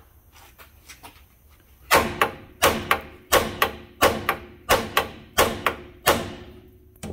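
Hammer blows on a Honda's steel steering knuckle: a few light taps, then about a dozen hard metallic strikes, mostly in quick pairs, with the metal ringing between them. The shock is meant to pop the lower ball joint's tapered stud loose from the knuckle, and it comes apart.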